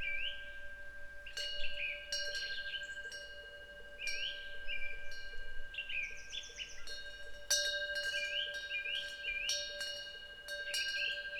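Korean temple wind bell (pungyeong) ringing, struck several times with its tones ringing on between strikes. A bird calls over it with short rising chirps in groups of two or three.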